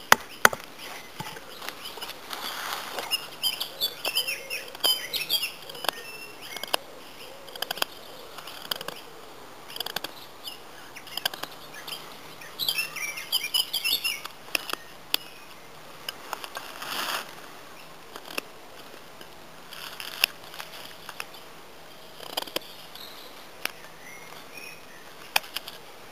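Gary Mills Patriot bushcraft knife carving a notch into a hazel stick: a baton knock on the blade just after the start, then short scattered scrapes and clicks as the blade bites into the wood. A bird chirps in quick runs twice, a few seconds in and again about halfway through.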